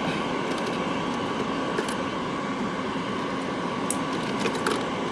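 Steady whirring of a food dehydrator's fan, with a few faint light clicks in the second half.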